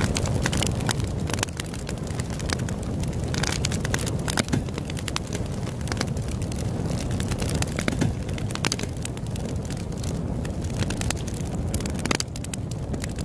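Campfire burning, with steady crackling and sharp pops of wood, the loudest about 4.5, 8 and 12 seconds in, over a continuous low rush.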